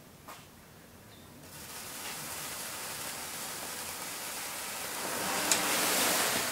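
A long sparkler set alight by high electric current through its wire core, fizzing and hissing as it burns along its length. The hiss sets in about a second and a half in and builds to its loudest near the end, with one sharp crack, as the whole sparkler burns out within seconds.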